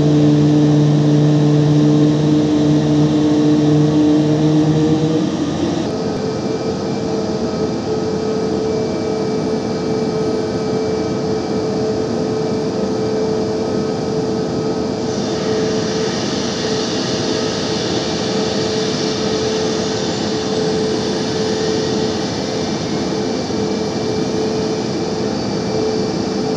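Boeing 737 jet engine spooling up, a rising whine that starts about halfway through and climbs steadily over a steady hum. A deeper steady drone drops away about five seconds in.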